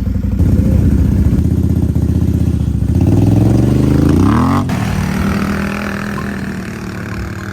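Small off-road engines running, from the ATVs and side-by-side riding through the mud; one revs up hard and then falls back about four and a half seconds in, leaving a steadier running engine.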